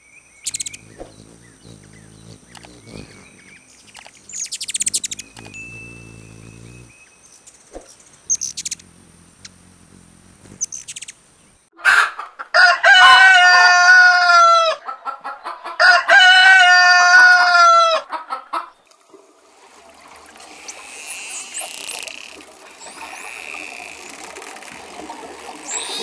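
A rooster crowing twice, each crow about two to three seconds long and the loudest sounds here. Fainter, scattered sounds come before them and a softer chirping haze follows.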